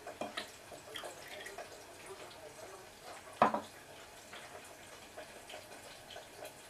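Cooking oil poured from a small drinking glass into a glass measuring cup, with light glassy clicks. About three and a half seconds in, the glass is set down on the counter with one sharp knock.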